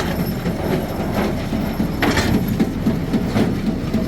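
Old New Holland Hayliner 67 square baler running empty off the tractor's PTO, its chains and plunger clanking again and again over a steady engine rumble. It is a test run with the chains freshly lubed, and everything looks good.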